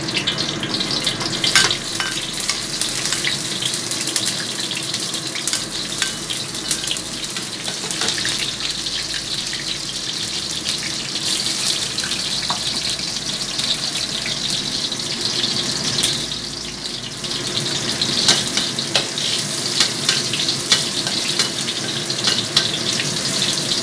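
Garlic and ginger frying in hot vegetable oil in a wok: a steady sizzle with a dense crackle that carries on throughout, the aromatics cooking until fragrant.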